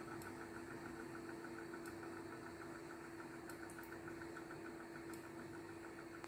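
Faint steady mechanical hum with a fast, even pulsing over it and a few faint ticks.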